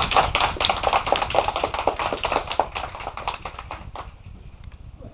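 Small audience of children clapping, many hands at once, dying away about four seconds in.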